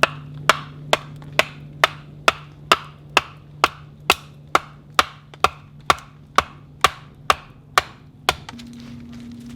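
Wood being chopped in a fast, even rhythm: about nineteen sharp strikes, a little over two a second, stopping near the end. A low steady hum runs underneath.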